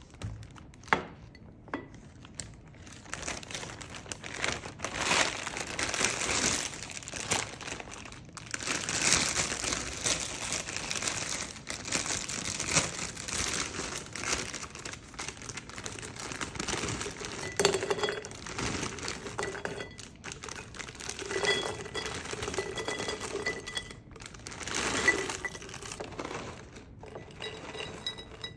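Plastic bag crinkling and rustling as dried pieces are poured from it into glass jars, with small clicks and rattles of the pieces landing on glass.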